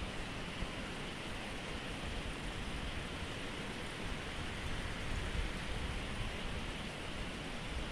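Steady outdoor rushing noise, with uneven wind rumble on the microphone.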